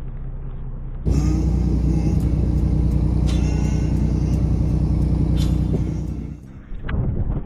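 Boat engine running with a steady low rumble; the sound jumps suddenly louder about a second in and dips near the end, as at cuts between shots.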